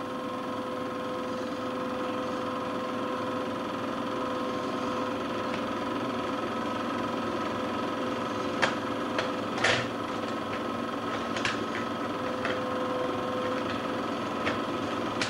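Steady mechanical hum with a few sharp clicks, the loudest of them about nine and ten seconds in.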